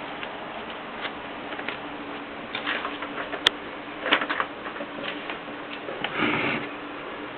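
Mercedes Superba typewriter being worked: scattered mechanical clicks and clacks at an uneven pace, with a sharp click about three and a half seconds in, a quick run of clacks around four seconds, and a longer rasping mechanical sound around six seconds, over a steady hiss.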